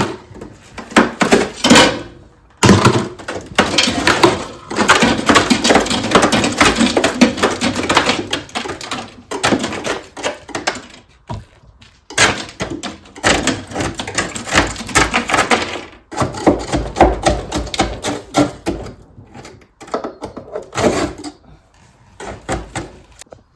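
Ice and packed frost being chipped and scraped out of a freezer compartment: rapid scraping and clicking with knocks of plastic, in several spells broken by short pauses.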